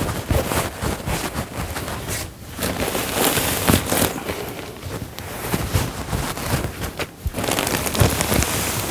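Rustling and scrunching of polyester fiberfill and a fabric pillow cover as handfuls of stuffing are pulled from the bag and jammed into the cover. The sound is irregular and uneven, with brief lulls about two and a half seconds in and again around seven seconds.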